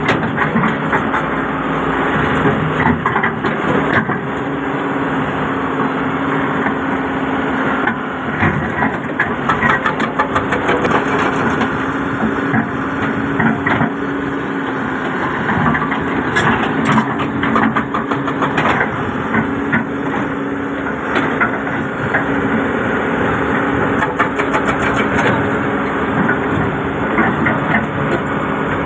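Doosan crawler excavator's diesel engine running steadily under hydraulic load, with frequent crunching and scraping as the bucket rakes dry soil and stones along the trench floor.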